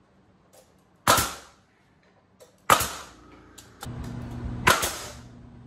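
Pneumatic nail gun firing three times, about a second and a half apart, each shot a sharp bang with a short hiss of air, driving nails into a treated 2x4 toe-kick frame. A steady low hum sets in a little after the second shot.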